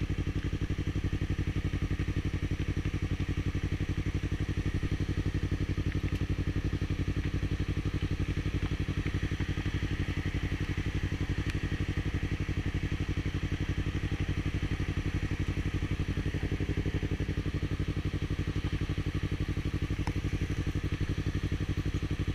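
Yamaha R3 motorcycle's parallel-twin engine idling steadily, with an even pulse and no revving.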